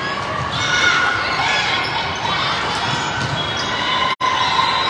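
Echoing gym game noise: a ball bouncing and hitting, with voices of players and spectators in a large indoor hall. The sound cuts out for an instant near the end.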